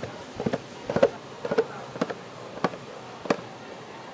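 Metal bench scraper chopping down through a starch-dusted slab of fruit warabimochi and knocking on the steel tray beneath: a steady series of sharp knocks, roughly two a second, some in quick pairs.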